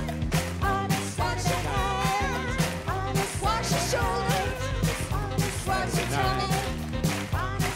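Upbeat live band music with a steady beat, drums and bass under it and voices singing along.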